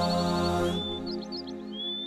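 Ambient new-age background music of sustained held tones, with high chirping birdsong mixed in; the low tones fade out in the second half.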